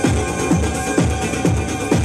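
Electronic dance music played from a DJ's vinyl turntable, with a steady kick drum about two beats a second under a dense layer of synths and hi-hats.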